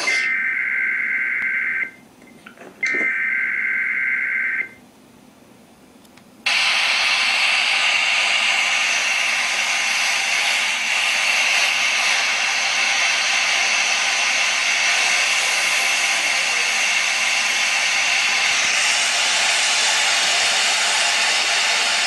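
Emergency Alert System broadcast: two bursts of warbling SAME header data tones about two seconds each with a one-second gap, then after a short pause a loud steady static hiss that takes the place of the attention tone, the sign of a failed alert. The hiss turns brighter about 19 seconds in.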